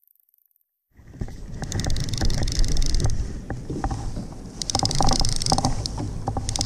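Conventional saltwater reel being cranked against a bent rod while fighting a fish, with small clicks from the reel. Under it, water sloshing against the kayak and wind on the microphone. The sound starts suddenly about a second in, after a short silence.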